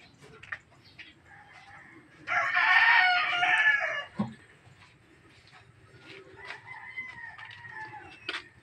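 A rooster crows loudly once, for nearly two seconds, starting about two seconds in; a short low thump follows, and a fainter, drawn-out call comes later.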